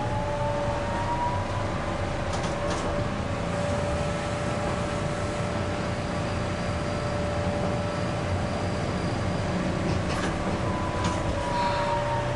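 Iyotetsu street tram running along its track, heard from inside the cab: the traction motor's whine climbs in pitch over the first two seconds as it gathers speed and drops again near the end as it slows, over a steady tone and the rumble of the wheels on the rails, with a few short clicks.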